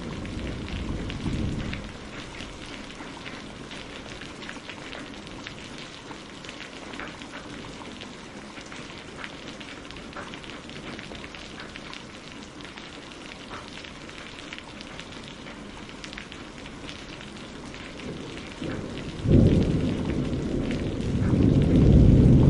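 Steady rain pattering on a surface, with a low thunder rumble fading over the first couple of seconds. A sudden clap of thunder comes about 19 seconds in and rolls louder toward the end.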